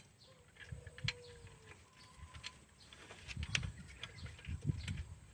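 Scattered light metal clicks and low knocks from hand-tool work on a Hino Dutro diesel engine's injection pump mounting, with the heaviest knocks about three and a half and five seconds in.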